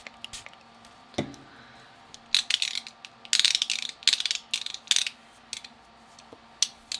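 Snap-off utility knife being handled: a few sharp clicks, then a run of short ratcheting bursts from its blade slider, with a couple of lone clicks near the end.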